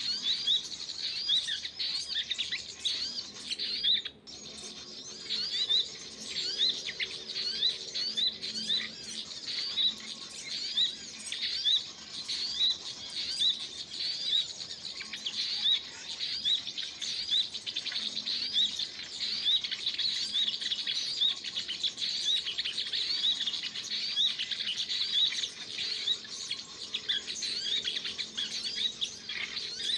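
Small birds chirping: a steady run of short, high, repeated chirps, two or three a second, with a brief break about four seconds in.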